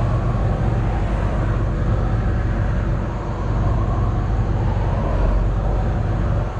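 John Deere excavator's diesel engine running steadily under operation, heard from inside the cab; the loudness dips briefly about halfway through, then picks up again.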